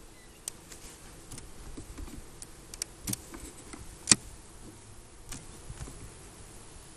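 Metal hive tool prying and scraping at the wooden frames of a beehive super: a scattered series of sharp clicks and scrapes, the loudest a little past four seconds in.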